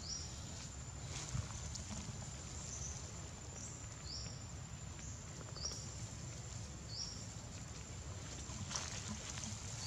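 Outdoor ambience: a steady high-pitched whine with several short high chirps scattered through it, and a brief rustle, like dry leaves being disturbed, near the end.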